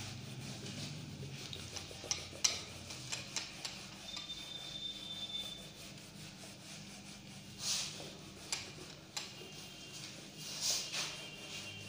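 A duster wiping chalk writing off a board: uneven rubbing strokes with a few sharp ticks, the loudest swishes about two and a half, eight and eleven seconds in.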